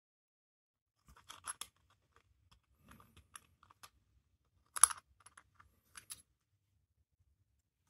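Small metallic clicks and scrapes as a Seiko 6138 Bullhead's steel watch case and caseback are handled and the caseback worked off by hand, in a few short clusters, with one sharp click a little before five seconds in.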